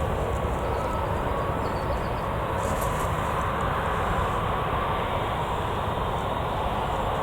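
Jet airliner engines running, a steady rush of noise with a faint whine in it.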